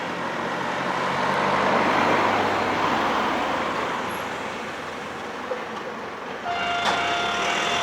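Choshi Electric Railway train passing over a level crossing, a rushing rail noise that swells and then fades. About six and a half seconds in, a steady ringing tone with several overtones starts, with a short click just after it.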